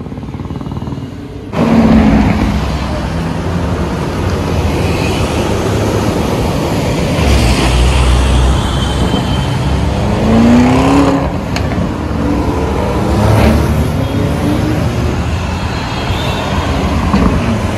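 Lamborghini supercar engines running and revving amid road traffic, becoming suddenly loud about a second and a half in, with engine notes rising in pitch twice as cars accelerate.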